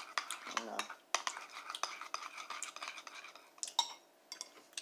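Spoon scraping and clinking against a bowl of oatmeal as it is stirred: a dense run of quick scrapes and clicks, thinning to a few separate clinks near the end.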